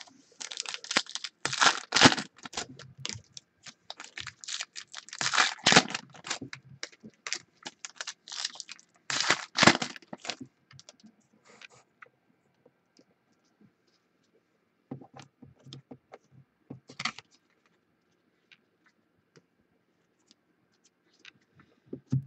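Stacks of trading cards handled and squared on a wooden tabletop: a dense run of quick papery clicks and rustles for about the first ten seconds, then a few scattered taps around fifteen to seventeen seconds in.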